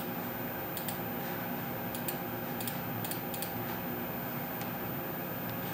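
Steady low hum in a small room, with a scattering of light computer-mouse clicks and a sharper click near the end.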